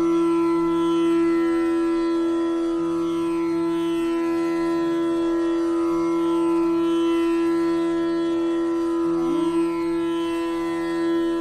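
Instrumental background music over a steady drone held on one note, with a lower note coming and going every couple of seconds and a short upward slide about nine seconds in.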